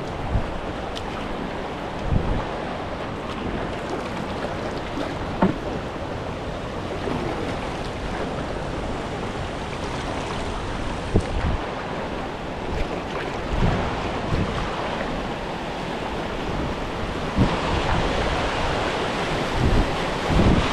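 Steady rush of river water around a kayak, with short low thumps every few seconds, growing a little louder near the end.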